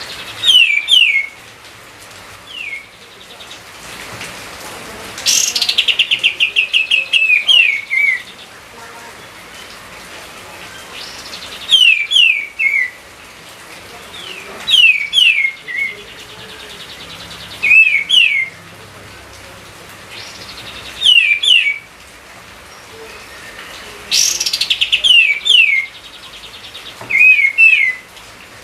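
A songbird singing close by, in short phrases of quick, clear, downward-slurred whistles repeated every few seconds. Twice, about five seconds in and near the end, it adds a fast buzzy trill.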